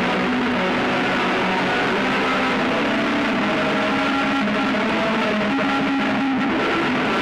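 Harsh noise drone music: a dense, steady wall of hiss with several held, wavering tones beneath it, at an unchanging loudness.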